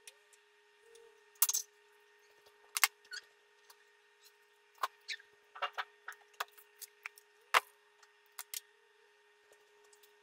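Scattered knocks, clicks and rustles of plastic containers and packages being handled as baking ingredients are taken from a pantry, the loudest knocks about one and a half, three and seven and a half seconds in. A faint steady hum runs underneath.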